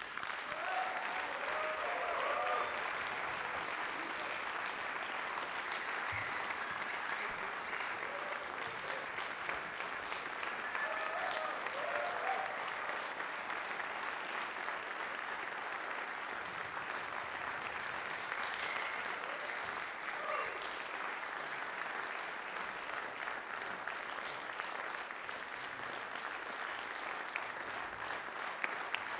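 Concert audience applauding steadily, with a few voices calling out in cheers near the start and again about ten seconds in.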